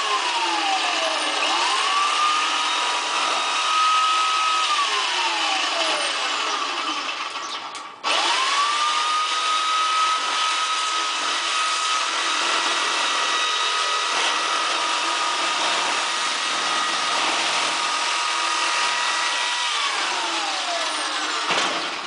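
Corded electric sheet-metal shear cutting a metal trailer skin, its motor whining steadily. The pitch sags and recovers as it bites into the metal. It stops about eight seconds in, starts again with a rising whine, and winds down near the end.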